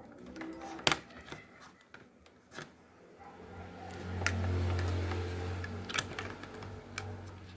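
Scattered sharp clicks and taps of a plastic USB phone charger being plugged into a power strip and a small Bluetooth module board being handled. A low hum swells about halfway through and fades near the end.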